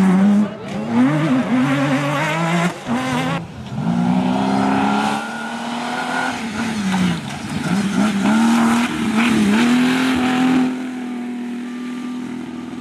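Off-road rally cars' engines revving hard, the pitch climbing and dropping again and again with throttle and gear changes. A different car takes over after each cut, and a steadier, quieter engine note fills the last couple of seconds.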